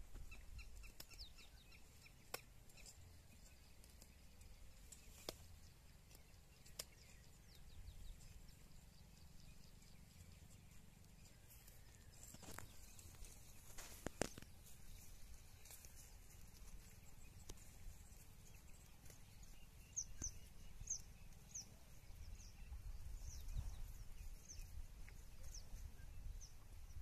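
Faint, scattered snaps and crunches of a zebu cow cropping dry grass and brush. A bird chirps a run of short, high calls over the last several seconds.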